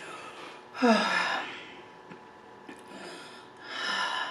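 A woman sighing: a short voiced sigh falling in pitch about a second in, then a long breathy exhale near the end.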